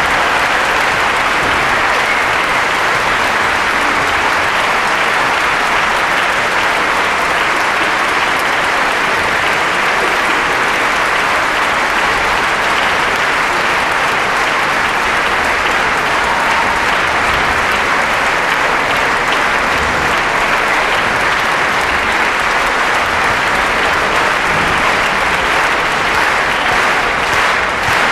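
Audience applauding steadily. Near the end the clapping falls into unison, a regular beat of about two claps a second.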